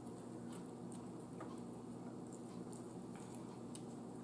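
Faint eating sounds: scattered small clicks and wet noises as a piece of chicken is pulled apart by hand and bitten, over a steady low room hum.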